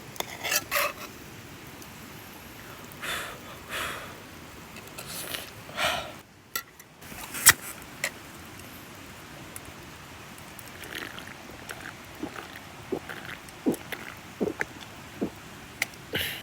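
Metal utensils scraping and clicking against cookware in scattered short strokes, over a steady background hiss.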